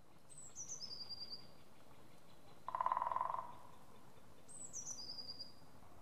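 Great spotted woodpecker drumming: one short, fast roll of beak strikes on wood lasting under a second, the loudest sound, with a brief ring after it. Before and after it a songbird twice sings a short high song that steps down in pitch and ends in a trill.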